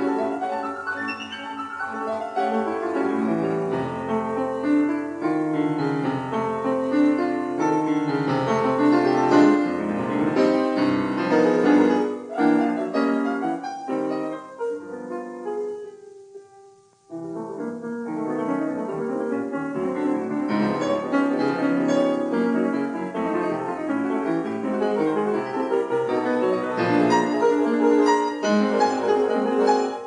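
Classical piano music. A little over halfway through it fades out to a brief gap, then the piano starts again.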